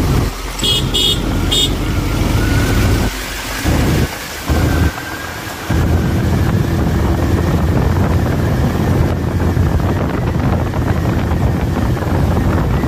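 Motorcycle engine running while riding in traffic, with wind rushing over the microphone; the engine sound dips twice between about three and six seconds in, then runs steady. Three short horn beeps about a second in.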